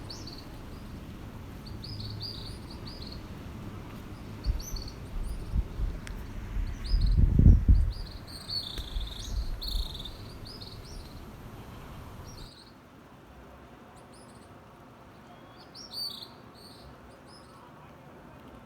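Small birds chirping: many short, high chirps repeating throughout. A low rumble comes and goes in the middle stretch and is loudest about seven seconds in.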